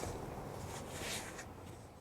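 Rustling of a fabric seat cover being handled and pressed into place, a few short scratchy brushes over a low background hum, fading out near the end.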